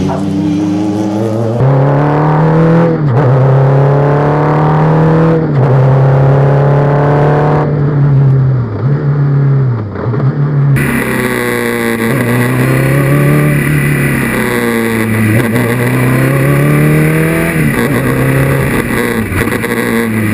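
Renault engine of a Formula 2 single-seater revving hard around a twisty track. Its pitch climbs again and again and drops back at each gear change or lift for a corner. The sound changes abruptly twice.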